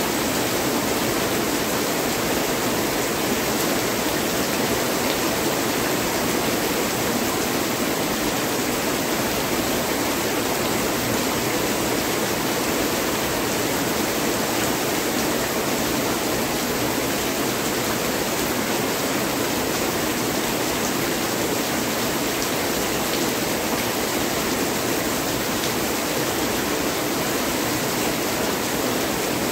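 Heavy rain falling steadily, a dense even hiss with no breaks or thunder claps.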